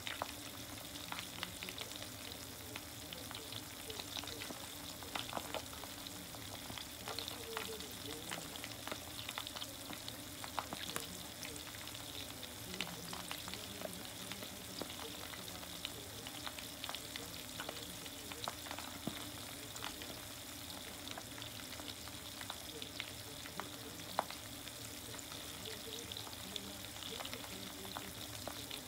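Karaage chicken deep-frying in oil in a mess tin: a steady sizzle with frequent small crackling pops.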